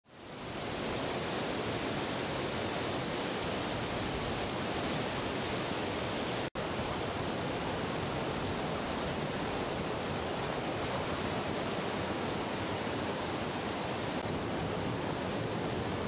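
Steady rush of a mountain stream and waterfall cascading over rocks. It fades in over the first second and cuts out for an instant about six and a half seconds in.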